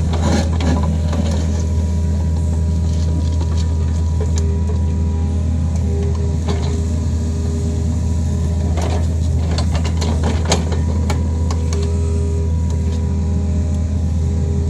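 Kobelco SK55 excavator's diesel engine running steadily under working load, with scattered sharp clanks and knocks over it.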